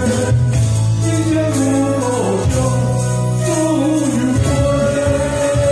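A man singing into a microphone over an amplified backing track, with a steady bass line and long sung notes that slide in pitch.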